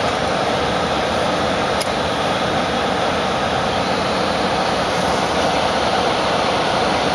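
Steady, even rushing noise from the 2001 Toyota Avalon running just after a cold start, with no clear engine beat standing out.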